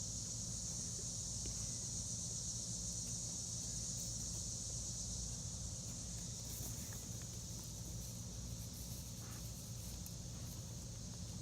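Steady high-pitched chorus of insects such as crickets or katydids droning without a break, with a few faint clicks or rustles in the second half.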